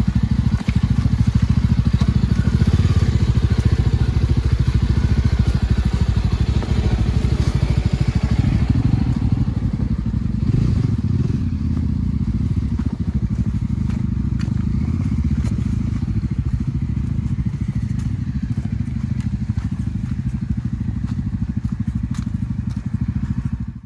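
Yezdi Adventure's single-cylinder motorcycle engine running steadily as the bike is ridden off-road, slightly louder in the first half; it cuts off abruptly near the end.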